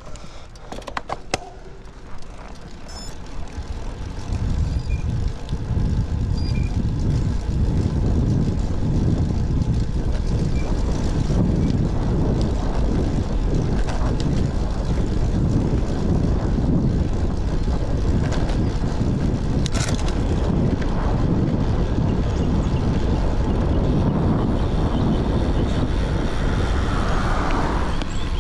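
Wind buffeting on an action camera's microphone as a road bicycle is ridden, a steady low rumble that swells about four seconds in as the bike picks up speed. A few sharp clicks come at the start.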